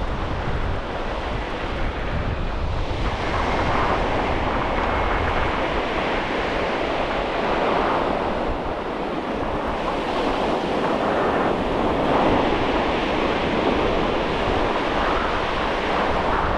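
Surf breaking and washing up a flat beach, swelling and easing about every four seconds, with wind buffeting the microphone.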